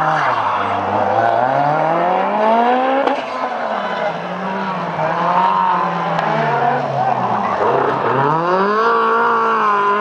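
Rally car engines, a Lancia Delta S4's among them, revving hard through a corner, the pitch climbing and dropping again and again with throttle and gear changes.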